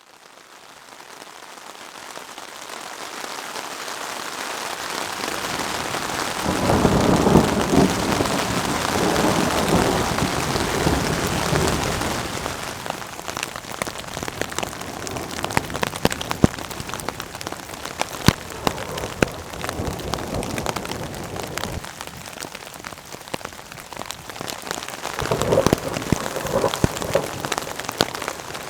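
Steady rain during a thunderstorm, fading in over the first few seconds, with sharp drops pattering close by. Thunder rumbles low for several seconds near the start and again briefly near the end.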